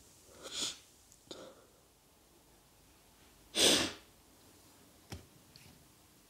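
A young man crying and sniffling: a short sniff about half a second in, and a louder, sharp sniff about three and a half seconds in, with quiet room tone between.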